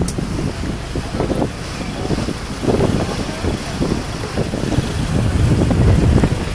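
Wind buffeting the microphone on the deck of a moving car ferry, over a steady low rumble from the ferry's engines and water rushing along the hull.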